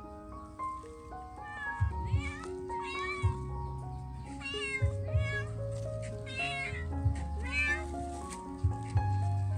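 Kitten meowing again and again, about seven short rising-and-falling calls, over background music with a steady beat.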